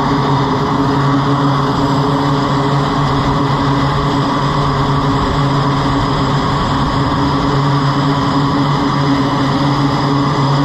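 F/A-18 Super Hornet's jet engines running on a carrier flight deck: a loud, steady jet noise with a low hum and a high whine that holds throughout.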